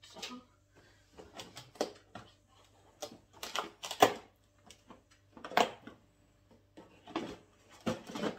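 Cardboard packaging of a Pringles advent calendar being handled and opened: about a dozen irregular crackles and knocks, the loudest about four seconds in.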